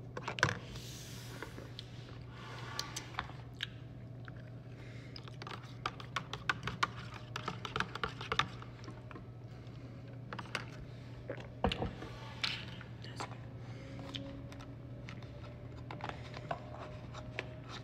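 A plastic straw stirred and knocked inside an aluminium cup of drink, making a run of quick sharp clicks and taps that are densest in the middle, over a steady low hum.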